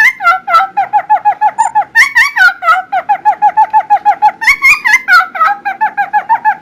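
Cucak timor songbird singing loudly: a rapid, unbroken run of short whistled notes, about five a second, switching to higher-pitched phrases twice, about two seconds in and again about four and a half seconds in.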